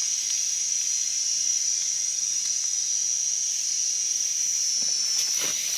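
Steady, high-pitched insect drone, one unbroken tone with a hiss above it, filling the forest air. There are a few faint rustles near the end.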